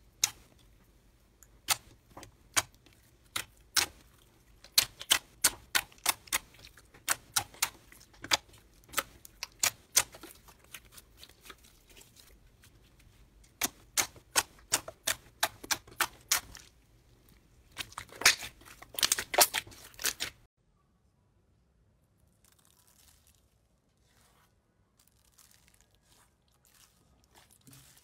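Clear glitter slime being pressed and squeezed by hand, giving a run of sharp pops and clicks in clusters as trapped air bursts out. It stops abruptly about 20 seconds in, and only faint soft crackling follows.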